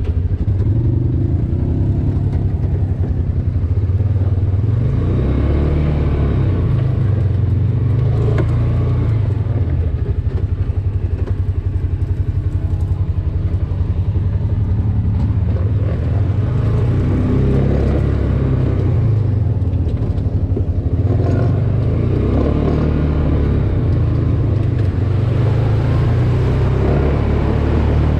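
A vehicle engine running steadily while riding, as heard from on board, with small rises and falls in its pitch.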